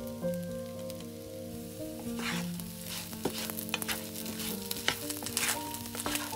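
Bread cubes sizzling in hot oil in a non-stick frying pan while a wooden spatula stirs them, with scraping strokes and clicks against the pan, the busiest about two seconds in and again near the end. Soft background music plays under it.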